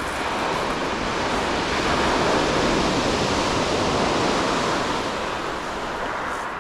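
Sea surf washing on the shingle of Chesil Beach, a steady rush that swells about two seconds in and eases off near the end.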